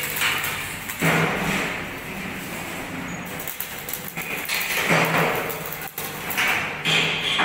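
Angle grinder working over a steel concrete-mixer drum, a rough grinding noise under a low motor hum, coming in several passes of a few seconds each that start and stop abruptly.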